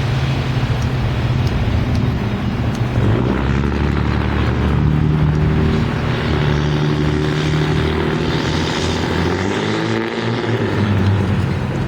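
Heavy diesel engine droning steadily as it passes, its pitch bending near the end.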